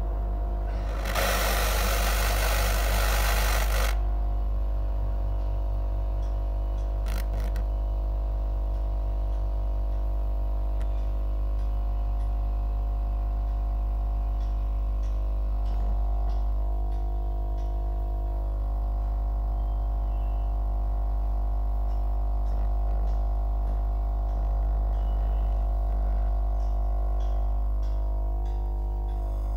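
Jewellery gas-air soldering torch: a loud hissing rush of the flame being blown hard, from about a second in to about four seconds, over a steady low mechanical drone that runs throughout.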